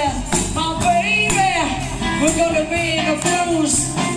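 Live band playing a song: electric guitar, keyboard, bass and drums keeping a steady beat, with several voices singing over it.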